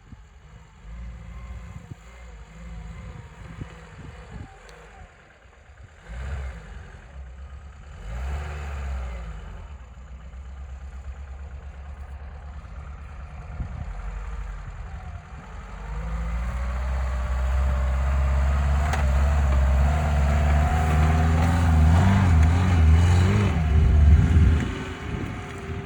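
Lada Niva 4x4's four-cylinder petrol engine running while driving off-road: it grows much louder about two-thirds of the way through, revs up and down, and eases off shortly before the end.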